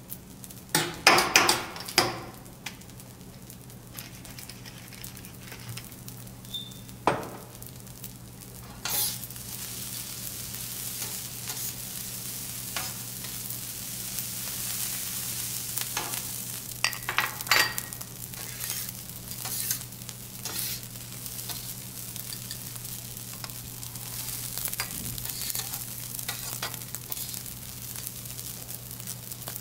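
Fried rice sizzling on a teppanyaki steel griddle while it is stirred and tossed. Metal spatulas click and clatter against the plate, sharpest about a second in, at about seven seconds and again around sixteen to eighteen seconds. The sizzle swells from about nine seconds in and keeps going.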